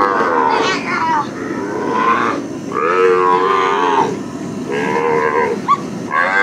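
Calf bawling over and over, about four long calls with short breaks between them, while it is held down on the ground.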